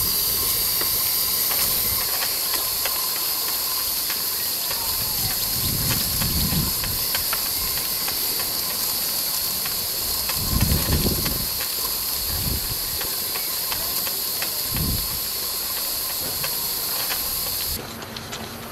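Stuart model beam engine running on live steam: a steady hiss of steam with quick, light mechanical ticking from the engine. A few dull low thumps come and go, and the hiss drops away near the end.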